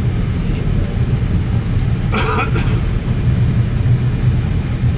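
Steady low rumble inside an Airbus A320 cockpit as the airliner rolls down the runway after touchdown. A short, higher, hissy burst comes about two seconds in.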